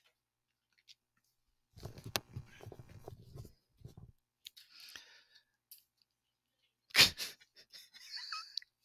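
Rustling and rubbing on a headset microphone as it is handled, with a low crackly rumble for a couple of seconds. About seven seconds in there is one loud, sudden burst of noise.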